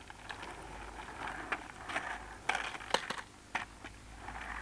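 Skateboard wheels rolling on rough asphalt, with several sharp, irregular clacks as the board is kicked and set back down on the road.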